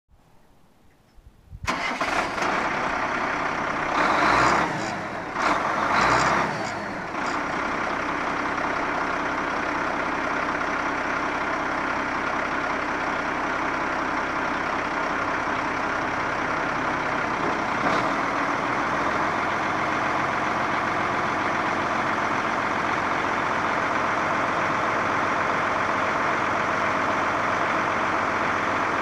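Ford L8000 dump truck's engine cranking and starting about two seconds in, revving up twice, then settling into a steady idle. The idle note shifts slightly past the halfway point.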